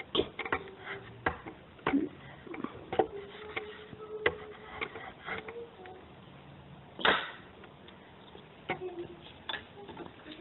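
A string of irregular sharp knocks and clicks, about ten in all, the loudest one about seven seconds in.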